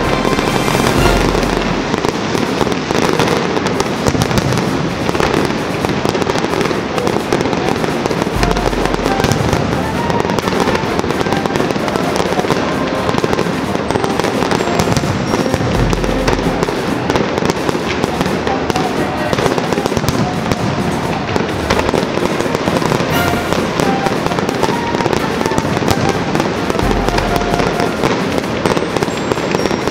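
Dense fireworks barrage: a continuous stream of aerial shell bangs and crackling, with four deeper booms spread through it.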